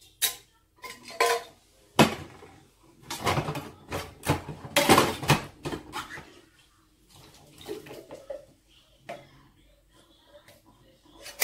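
Metal tins of kidney beans clinking and clattering as they are handled and the beans are tipped out into a plastic colander in a stainless-steel sink. The sound is a string of irregular sharp metallic knocks, busiest between about two and five and a half seconds in.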